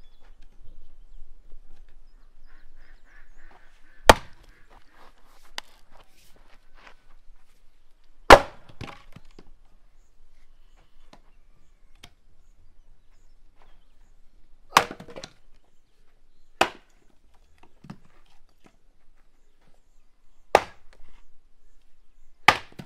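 An axe splitting firewood on a wooden chopping block: six loud, sharp cracks a few seconds apart, with a few lighter knocks of wood in between.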